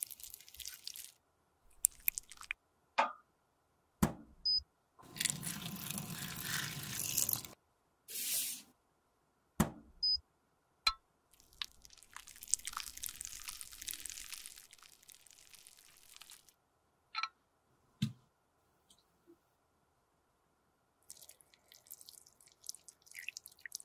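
Close-up handling sounds of a lipstick being cut from its tube, melted and recast: separate sharp clicks and taps, two noisy stretches of a few seconds each, and near the end molten lipstick pouring into a metal lipstick mold with soft dripping.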